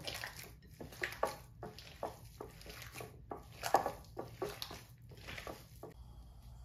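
A bare hand squeezing and mashing potatoes with oil and chopped herbs in a glass bowl: irregular wet squishing, stopping near the end.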